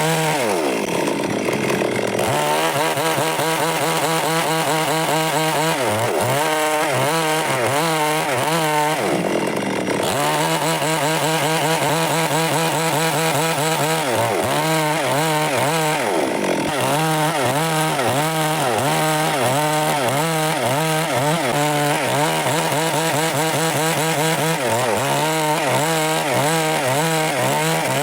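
Stihl MS 382 two-stroke chainsaw running hard while cutting wood, its engine pitch dipping and recovering several times as the chain bites and the throttle is worked.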